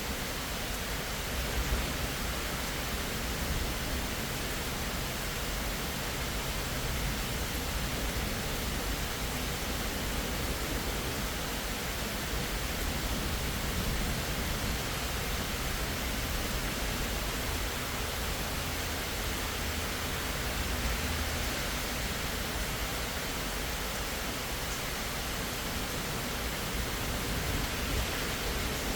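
Steady rain, an even hiss that holds without a break.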